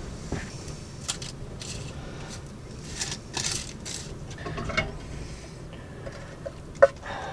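Metal tongs clicking and scraping against a metal oven tray as chips are moved about, then a single sharp knock, the loudest sound, near the end.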